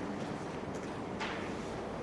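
Low, steady room noise in a hall after applause has died away, with two faint short clicks a little under and a little over a second in.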